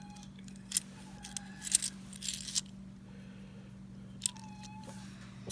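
Half-dollar coins clinking against each other as they are handled from an opened roll: a few separate sharp clinks, some with a brief ringing tone, over a low steady hum.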